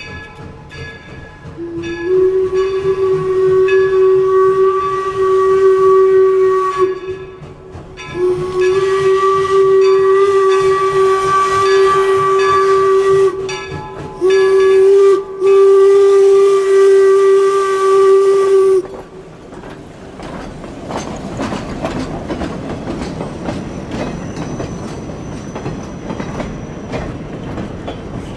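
Steam whistle of the 4-4-0 locomotive #17 sounding the grade-crossing signal: two long blasts, a short one, then a long one. The locomotive and its coaches then roll past, wheels clattering over the rail joints.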